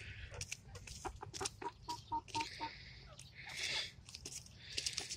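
Hens pecking at and tearing a head of cabbage, with many quick sharp pecking taps, rustling of leaves and soft clucking; a short run of even clucks comes about two seconds in.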